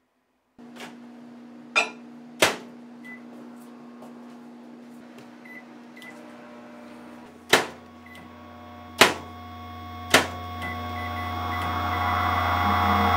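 Microwave oven being set and started: several loud sharp clicks and clunks, with a few short keypad beeps, then the oven running with a steady low hum that swells louder over the last few seconds.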